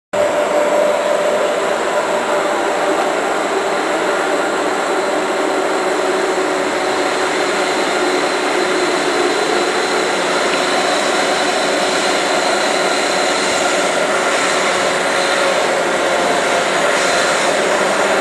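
Freight train led by two CSX SD60I diesel-electric locomotives approaching: a steady drone of engines and rolling train, growing slightly louder toward the end.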